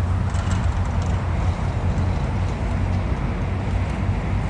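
Steady road traffic noise: a low rumble of passing cars.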